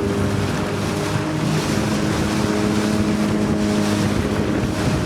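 Motorboat engine running at a steady pitch while the boat rides through swells, with wind buffeting the microphone and water rushing past the hull.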